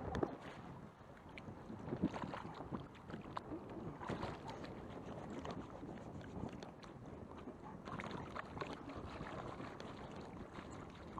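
Strong wind, about 7 m/s, blowing across the microphone in gusts, with sharp buffets just after the start and about two seconds in.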